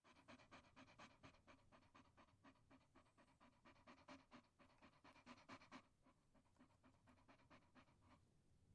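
Dog panting: quick, even breaths, about four a second, heard faintly. The panting grows weaker about six seconds in and stops shortly before the end.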